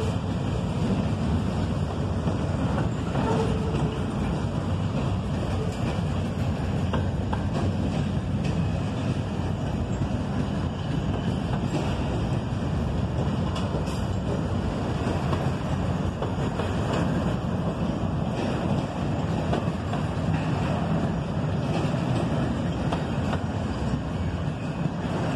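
Double-stack well cars of an intermodal freight train rolling past, a steady rumble of steel wheels on the rails with scattered clicks.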